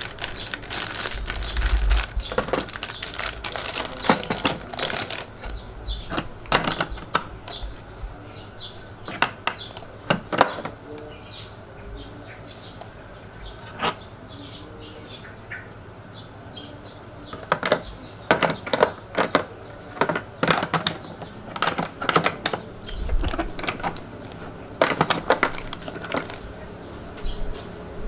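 Hard metal objects being handled: repeated clinks, clicks and knocks. They come in a dense run in the first third, thin out in the middle, and pick up again in the last third, with a few dull thuds.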